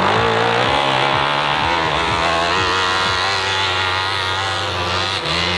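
Dirt bike engine revving hard under load on a steep climb, its pitch wavering up and down with the throttle.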